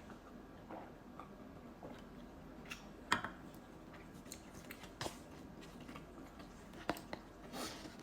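Someone eating noodles: faint chewing with scattered sharp mouth or utensil clicks, the loudest about three seconds in and others near five and seven seconds.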